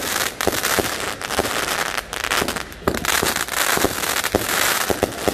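A 500-gram Rip Curl consumer firework cake firing a rapid string of shots, about three a second, with a steady crackling hiss running under the reports.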